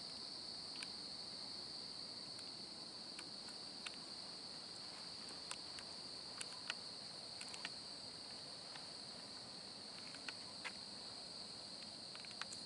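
Steady high-pitched chorus of night insects, with a dozen or so short sharp clicks scattered through it.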